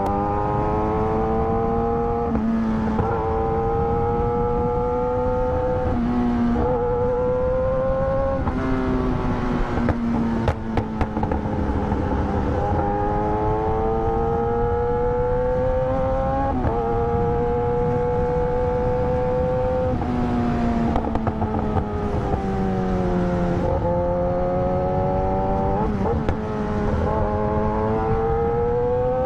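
Kawasaki ZX-10R's inline-four engine running under way, its note holding fairly steady and then changing pitch abruptly every few seconds as the rider works the throttle and gears. A rush of wind noise runs underneath.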